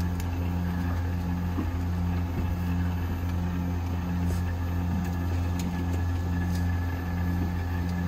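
Steady electric hum of a running 12-volt marine air-conditioning system and its seawater pump, with a faint throb about once a second.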